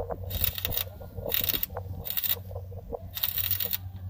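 Electric arc welding on the steel header of a combine harvester: the arc crackles and sizzles in short spells of about half a second, struck and broken four times, as in tack welding. A steady low hum runs underneath.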